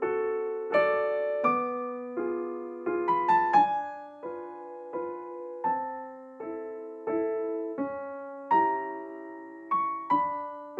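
Background piano music: single notes and chords struck about once or twice a second, each left to ring and fade.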